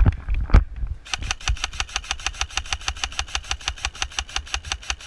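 Airsoft gun firing a long full-auto burst of even clicks, about nine shots a second, starting about a second in.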